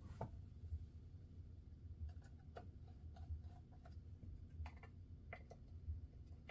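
Faint, scattered small clicks and ticks of a screwdriver against the metal parts of a Penn 85 fishing reel as its side-plate screws are driven in, over a low steady hum.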